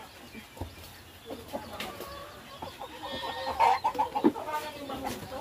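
A flock of native chickens clucking as they feed, with a louder run of clucks about three and a half seconds in.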